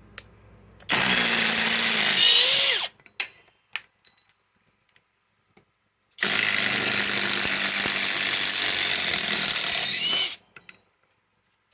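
Flex cordless compact impact wrench hammering as it backs lag screws out of very hard wood, in two runs: one of about two seconds starting about a second in, then a longer one of about four seconds starting about six seconds in.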